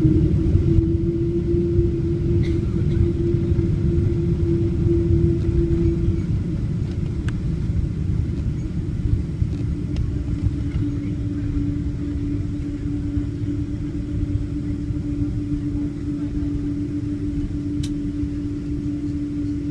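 Jet airliner cabin noise during the landing rollout: a loud, steady low rumble from the wheels on the runway and the engines, with a steady hum that fades about six seconds in and returns a little lower in pitch as the plane slows.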